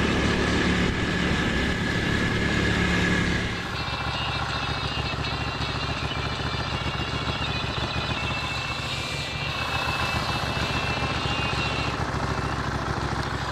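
Ducati Monster's V-twin engine running steadily at a constant low speed, typical of idle. It drops a little in level about four seconds in, then holds steady.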